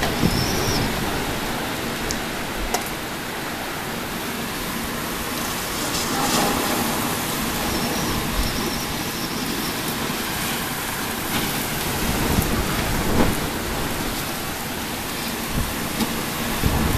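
Storm rain and gusting wind: a steady hiss with a restless low rumble that swells a little now and then, and a few sharp ticks scattered through it.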